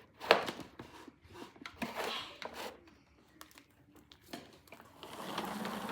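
Handling noises: scattered clicks and knocks with some rustling, the sharpest just after the start, and a steadier rushing noise building up near the end.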